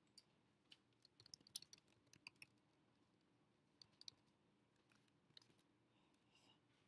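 Faint typing on a MacBook Pro keyboard: a quick run of key clicks about a second in, then a few scattered single clicks.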